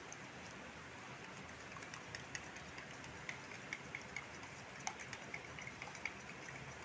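A spoon clicking lightly and irregularly against a bowl, several times a second, while beating a runny egg-and-milk mixture, over a steady low hiss.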